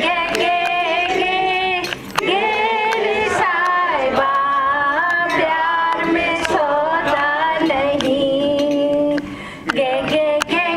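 A woman singing a Hindi film song into a microphone, amplified through a small PA speaker, in long held phrases with short breaks between them.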